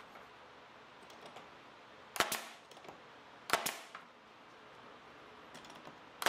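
Pneumatic nail gun firing nails into pine frame trim: two sharp shots about a second and a half apart, with a third right at the end.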